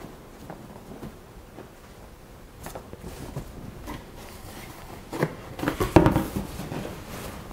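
Handling a cardboard box with a foam insert: light rustling and small clicks, then a louder cluster of scuffs and a thump as the box lid is folded shut about six seconds in.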